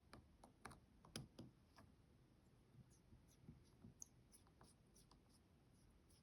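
Faint small clicks and taps of hand repair work on an iPhone, a quick cluster in the first two seconds, then scattered lighter ticks.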